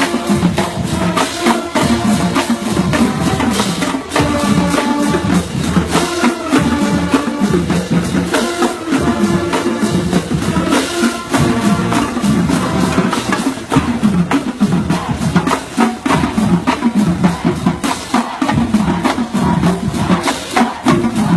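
High school marching band playing a stand tune: the drum line keeps a busy, steady beat under the band's melody.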